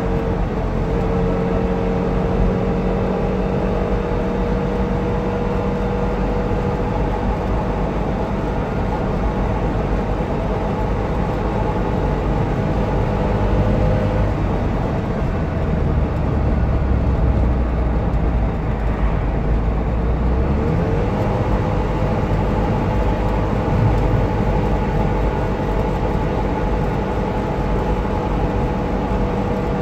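Trabant 601's air-cooled two-stroke twin engine running steadily while driving, heard from inside the cabin with road noise. The engine note changes about halfway through and rises again about two-thirds in.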